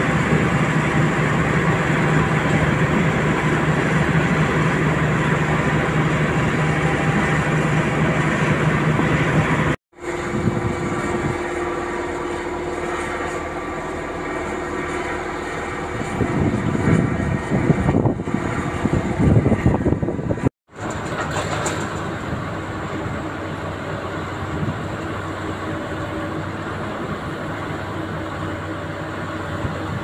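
Heavy construction machinery running: a crane-hung vibratory pile hammer on steel sheet piles drones with a steady deep hum. After a sudden cut about ten seconds in, diesel engine noise from a dump truck and excavator takes over and grows louder for a few seconds. A second abrupt cut about two-thirds of the way through brings back a steady machinery drone.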